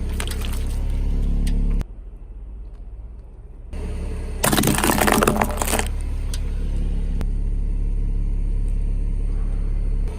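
Car engine running at low revs, with a loud crunching break lasting over a second, about four and a half seconds in, as the car's tyre crushes an object. The engine sound drops away for a couple of seconds near the start.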